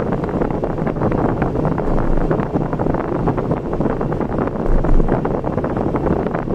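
Steady road and wind noise of a car being driven, with wind rumbling on the microphone.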